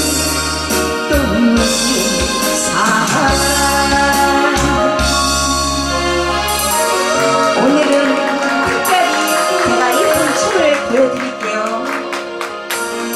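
A Korean trot song performed live to a backing track, with a woman singing a wavering melody line. Sharp percussion strokes come in about seven seconds in.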